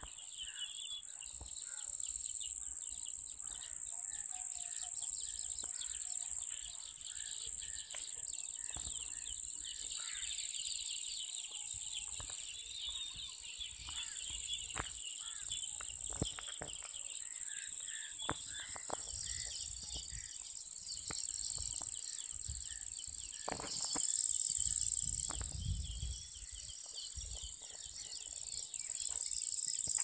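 Steady high-pitched chorus of insects, with bird twittering mixed in. A few low rumbling bumps come in about three quarters of the way through.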